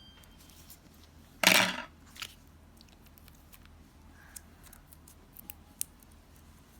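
Scissors cutting paper: one longer cut about a second and a half in, then a short snip, followed by a few light clicks and taps.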